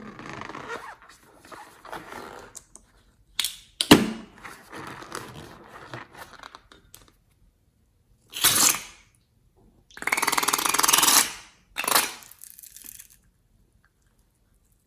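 Slime being squeezed and worked by hand: irregular squishing and crackling, a sharp snap about four seconds in, then several loud squelching bursts, the longest lasting about a second. It stops abruptly a couple of seconds before the end.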